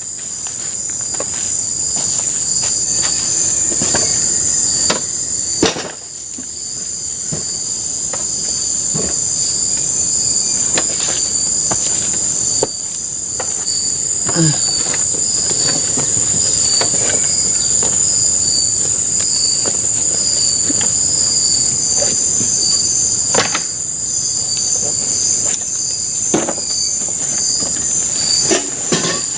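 Loud, steady chorus of forest insects, a high shrill drone with a pulsing note beneath it. Scattered short knocks and taps sound throughout.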